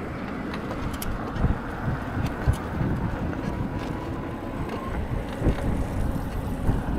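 Wind buffeting the unshielded microphone of an action camera on a moving bike: an uneven low rumble with irregular gusts, over road noise.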